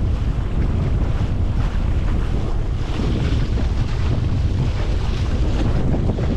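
Wind rumbling over a head-mounted camera microphone, with water rushing and splashing along the wooden hull of a small sailing proa under way; the splashing swells a little about three seconds in and again near five seconds.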